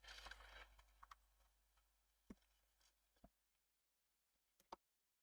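Near silence: room tone with a faint hiss in the first second and a few faint separate clicks, at about two, three and four and a half seconds in.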